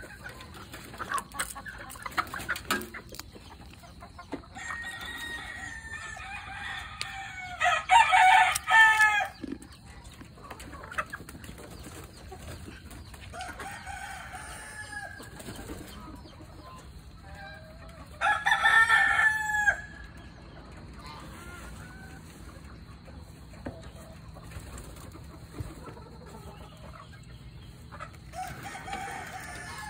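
Chickens in a coop: a rooster crowing, with two loud crows about eight and nineteen seconds in, and clucking in between. A few sharp clicks in the first seconds.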